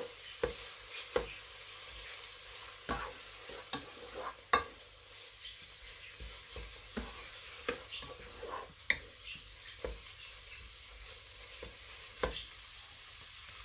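Minced meat with onion and garlic frying in a metal pot, sizzling steadily, while a spatula stirs it and scrapes and knocks against the pot in irregular clicks.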